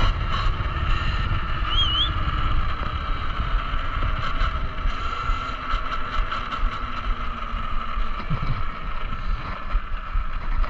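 Talaria Sting electric dirt bike riding along, wind buffeting the microphone, over a steady high whine from the electric motor and chain drive. A short warbling chirp comes about two seconds in.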